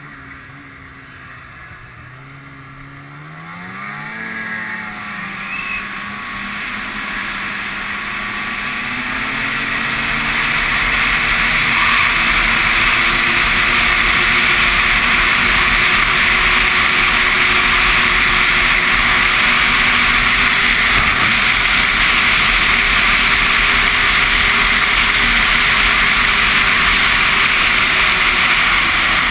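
Ski-Doo snowmobile engine rising in pitch as the sled accelerates a few seconds in, then running steadily at speed under a loud, even rush of noise.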